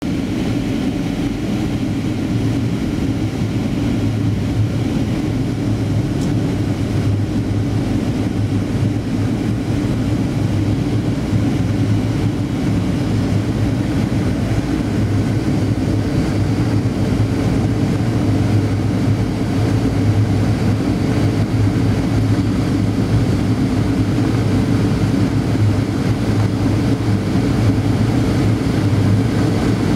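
Steady cabin drone inside a Boeing 737-800 seated over the wing: the low hum of its CFM56-7B turbofan engines mixed with the rush of air past the fuselage during the descent.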